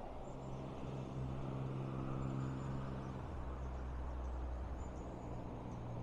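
Low steady hum of a vehicle engine running, its higher tones fading about three seconds in while the deepest hum carries on; faint high chirps sound above it.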